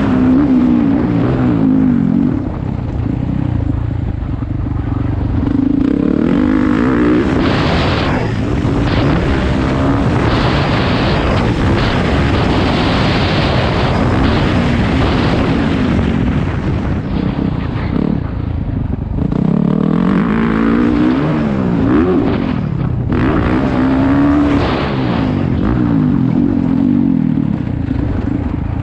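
Dirt bike engine revving up and down repeatedly as it is ridden around a motocross track, the pitch rising under throttle and falling off between sections. A loud rushing noise runs under the engine through the middle stretch.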